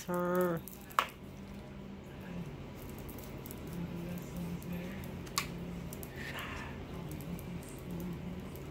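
A hand rubbing a cat's long fur, a soft rustling over a low steady hum, with two sharp clicks, about a second in and again near the middle.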